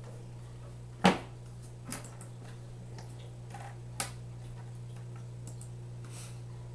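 A few sharp clicks, the loudest about a second in and two fainter ones later, over a steady low electrical hum.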